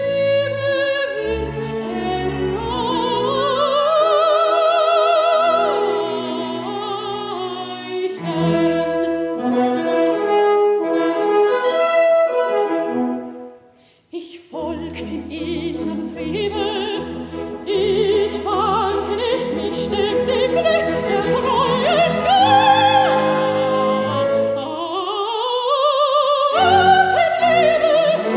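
A woman singing in full operatic voice with wide vibrato, accompanied by a small chamber ensemble of violin, double bass and bassoon. The music stops for a moment about halfway through, then goes on.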